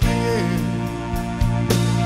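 Recorded soul music: a band playing sustained chords over bass, with drum hits.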